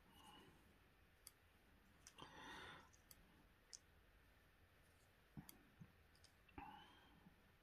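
Faint, sparse clicks of metal stamp tongs gripping and releasing paper stamps and tapping on a wooden tabletop, with a brief soft rustle about two seconds in.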